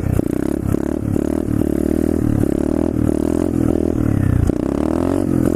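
Pit bike's single-cylinder engine revving hard as the rider tries to lift the front wheel into a wheelie. The pitch rises and falls as the throttle is rolled on and off, with a rattling, scraping noise underneath.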